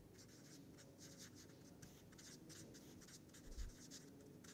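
Felt-tip marker writing on paper: faint, quick scratching strokes, one after another. A soft low thump about three and a half seconds in.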